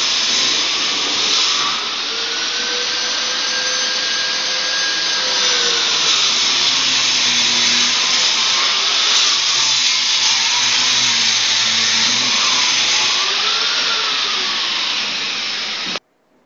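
Steady, loud whirring of an electric motor, with a pitch that slowly rises and falls; it cuts off suddenly near the end.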